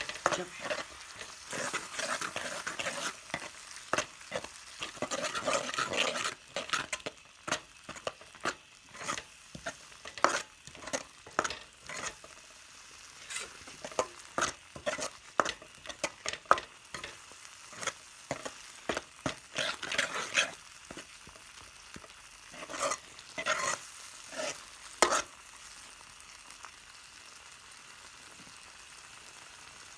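Egg and tomato mixture frying with a sizzle while being stirred, a spoon scraping and knocking against the pan many times. The stirring stops about 25 seconds in, leaving a fainter steady sizzle.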